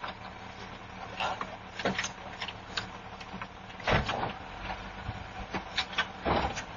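Knocks and thuds from a car over a low steady hum, heard through a doorbell camera's microphone. The two loudest come about four seconds in and again near the end.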